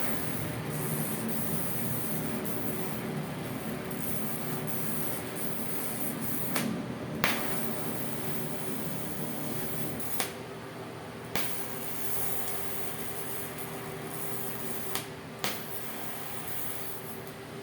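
TIG (GTAW) welding arc on carbon steel pipe, a steady hiss with a faint even hum, broken by a few sharp clicks, the loudest about seven seconds in.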